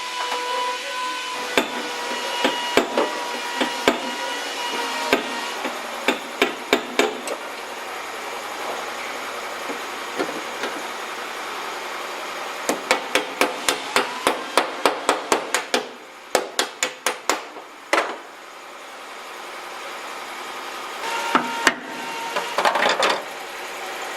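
Hammer blows on metal, typical of body work straightening sheet-metal panels: scattered single strikes, then a quick run of several strikes a second through the middle, and a few more near the end.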